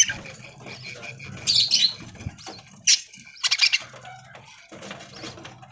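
A flock of budgerigars chirping and chattering, with several short high-pitched bursts about a second and a half, three and three and a half seconds in, and wings flapping.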